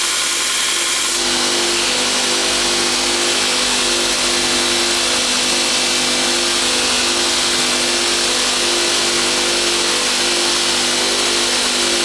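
Homemade belt grinder running steadily, a motor hum under a dense hissing belt noise. About a second in the sound gets fuller and brighter, then holds steady.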